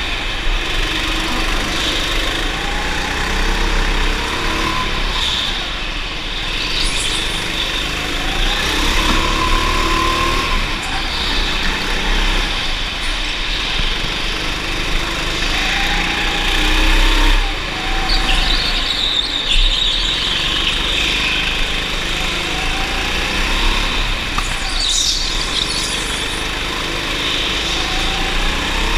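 Go-kart engine running hard on track, its pitch repeatedly rising and falling as the kart accelerates and slows, over steady wind and rolling noise.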